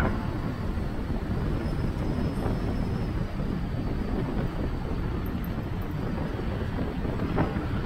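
Wind rushing over the microphone of a motorcycle riding at speed, a steady low rumble with engine and road noise underneath.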